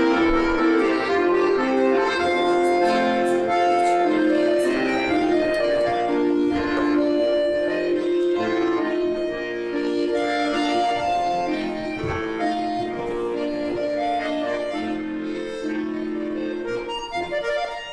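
Accordion playing a folk dance tune, a melody over held chords.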